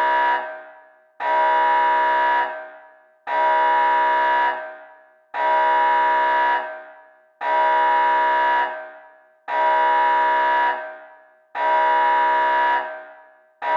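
Nuclear evacuation alarm horn blaring in repeated blasts of about a second, one every two seconds or so. Each blast is one steady, buzzy pitch, not a rising-and-falling wail, and rings out briefly after it stops.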